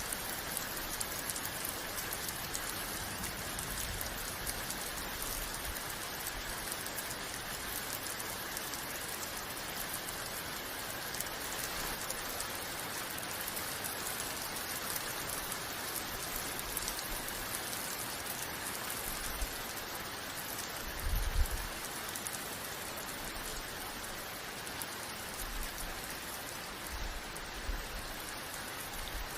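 Steady rain falling, with a few brief low rumbles underneath. The loudest rumble comes about two-thirds of the way through.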